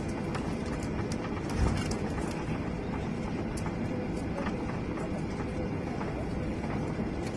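Boeing 777 taking off: a steady jet rumble, with faint scattered rattles and a brief thump about one and a half seconds in.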